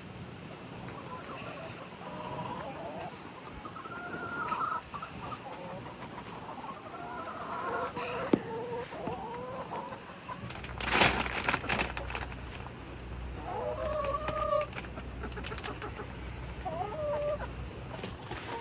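Chickens clucking, with short calls scattered throughout. About eleven seconds in comes a brief loud rustle, and a low steady hum runs underneath from then on.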